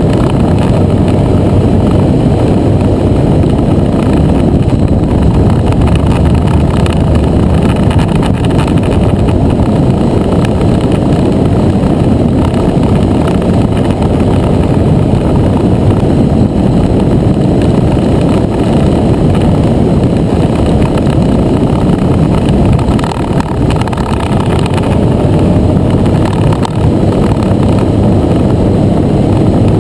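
Motor scooter riding at road speed, recorded from a camera on the bike: loud, steady wind rush over the microphone mixed with the engine's drone.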